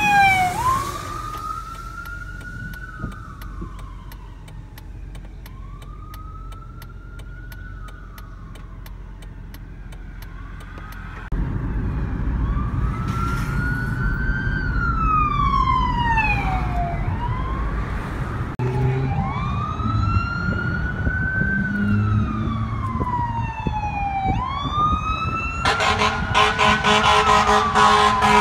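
Fire department vehicle sirens wailing, the pitch sweeping slowly up and down over and over as the vehicles drive past, with engine and road rumble underneath. Near the end a horn blares over the siren.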